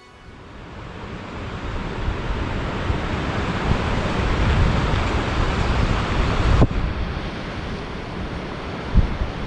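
Wind blowing over the microphone: a steady rushing hiss with heavy low buffeting, fading in over the first couple of seconds. A single sharp click comes about two-thirds of the way through.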